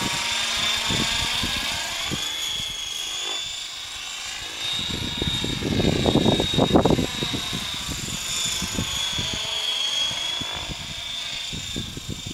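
Gaui Hurricane 550 electric RC helicopter flying fast manoeuvres: a high electric motor and gear whine with rotor noise, its pitch bending up and down as the helicopter speeds toward and away. A louder low rushing noise swells in the middle for a couple of seconds.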